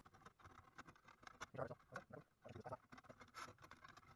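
Near silence with faint, irregular small clicks and rubbing as hands handle an aluminium extrusion rail and slide the gantry plate along it.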